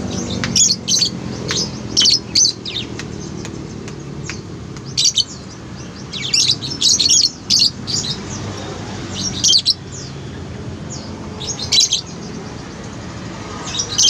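Caged lovebirds giving shrill, high chirps in short clusters, coming irregularly every second or two, over a steady low background hum.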